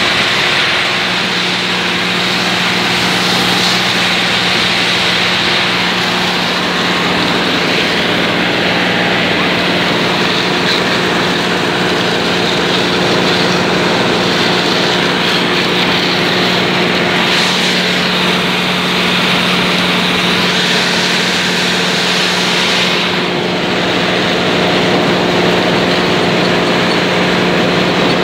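Claas Dominator 108 combine harvester running steadily while harvesting maize with a six-row corn header: diesel engine and threshing machinery with a constant hum.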